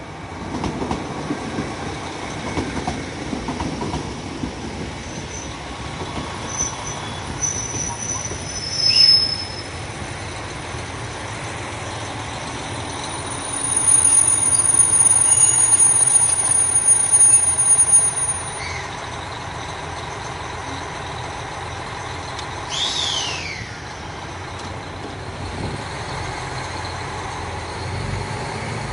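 Diesel local train on the Soya Main Line running on the track, with a high steady wheel squeal lasting about four seconds midway, the loudest part, plus shorter squeals before it and a brief falling screech later.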